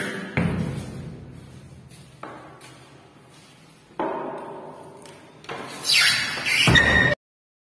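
Several separate knocks and thuds echoing in a bare, empty room, each dying away. Near the end comes a louder rushing, scraping noise with a brief high tone, which cuts off suddenly.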